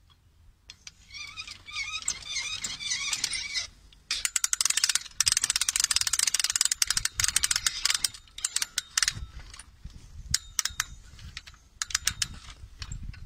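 Crank handle of a GIKPAL garden umbrella being wound, its ratchet and gear mechanism clicking rapidly for a few seconds, then in slower, separate clicks with a few low knocks as the turning slows.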